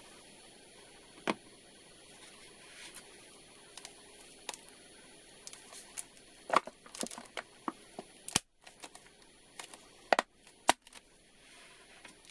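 Scattered clicks and crackles of a squeezed plastic PET bottle being handled, with several sharper clicks in the second half.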